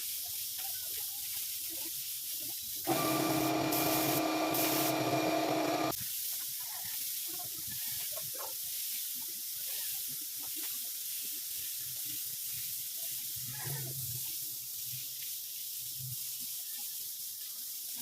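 Steady high hiss of compressed air, as from a spray gun during body painting. About three seconds in, a louder humming tone with several pitches comes in abruptly for about three seconds, then cuts off.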